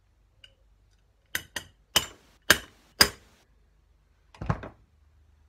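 Hammer tapping a fork damper rod in a bench vise: five sharp taps, the first two close together and the rest about half a second apart, to loosen the nut so the misseated washer can be reseated. A duller clatter of handled tools follows about a second later.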